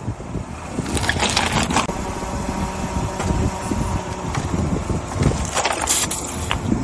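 A car running with its tyres rolling, and two bouts of crackling crunches as drink containers are crushed under the wheels: about a second in and near the end.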